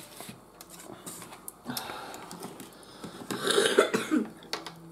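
A person coughs: a short rough burst about three and a half seconds in, with a smaller one just after.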